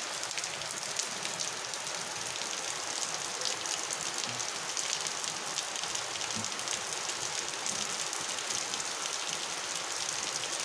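Fairly heavy rain falling steadily, a dense even patter of drops.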